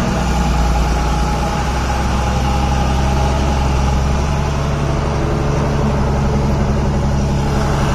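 Heavy cargo truck's diesel engine running steadily at low revs, a deep even drone with a faint steady whine above it.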